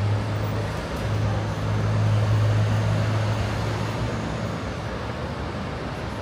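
Street traffic with a passing truck's engine running low and steady, growing louder in the first couple of seconds and fading away after about four seconds, over the general noise of the road.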